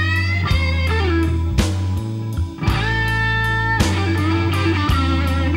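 Instrumental blues-rock music: an electric guitar plays held notes that bend and slide in pitch, over a steady bass and drum beat.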